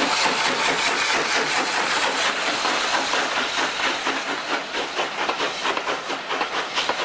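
Model railway train running past: a steady high rushing noise with many quick light clicks, easing off slightly towards the end.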